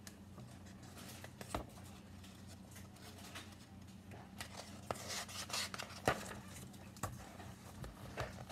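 Quiet handling of a hardcover picture book: a page being turned, with paper rustling about five seconds in and a few soft taps, over a faint low hum.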